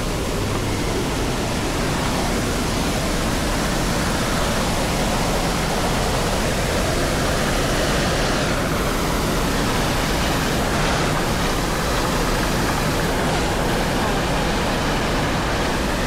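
Steady rush of white water falling at a waterfall, an even noise with no change in level.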